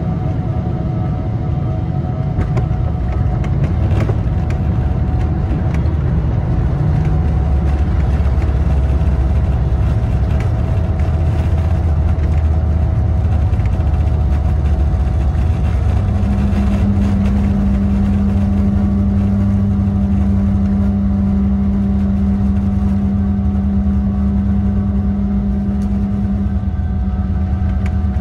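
Cabin noise of a Boeing 777 landing, heard over the wing: a loud, steady low rumble of the jet engines and the runway, growing louder about four seconds in as the airliner touches down and rolls out with its spoilers raised. A steady hum joins in about halfway through and stops near the end.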